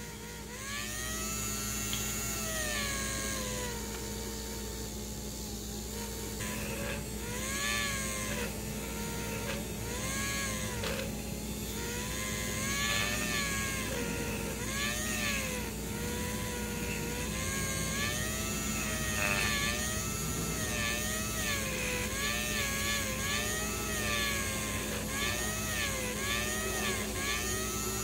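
Small electric motor of a slot-car tire truer spinning a front tire while a sanding block is held to the rubber. Its whine sags and recovers in pitch again and again as the block bears on the tire and eases off, with a light grinding hiss.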